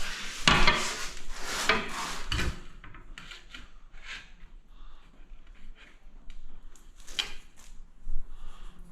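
Wood rubbing and scraping for the first couple of seconds, then quieter knocks and clicks of handling, with one sharper knock about seven seconds in.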